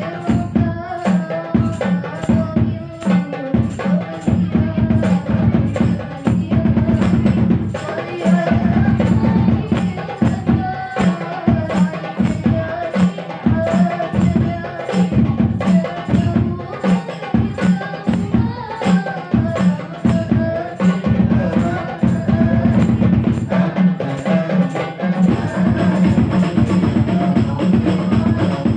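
Sholawat music: a steady, dense rhythm of hand percussion under a wavering melody line.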